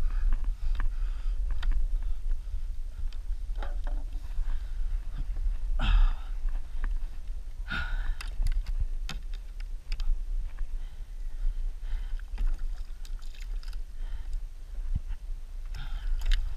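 Kayak being paddled on the sea: irregular splashes and drips as the paddle blades dip into the water, the strongest about six and eight seconds in, over a steady low rumble.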